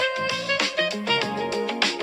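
Background music: a melody of plucked notes, guitar-like, over a steady beat.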